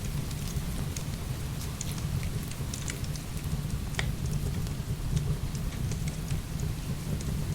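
Heavy rain falling steadily with a deep rumble, mixed with the irregular snaps and pops of firewood burning, one louder crack about four seconds in.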